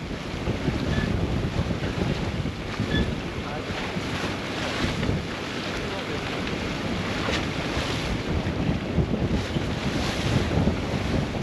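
Strong wind buffeting the microphone aboard a sailing yacht under way, with waves washing along the hull; the rush swells now and then with gusts and splashes.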